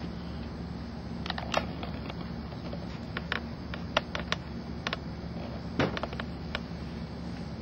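Scattered light taps and clicks of a dry-erase marker being handled and written on a whiteboard, over a steady low electrical hum.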